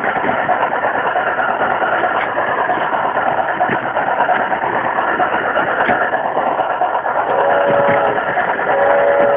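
G gauge garden-railway train running along the track, a steady rumble of wheels and motor heard from on board. About seven seconds in, a multi-note train whistle sounds twice in short blasts.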